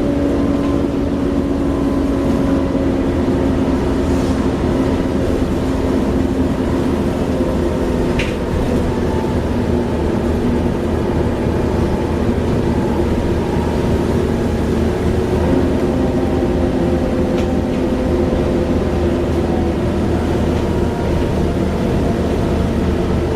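Class 37 diesel locomotive 37030's English Electric V12 engine running with a loud, steady whine, the 'Hoover' sound. The whine's several tones sink slightly in pitch over a low rumble.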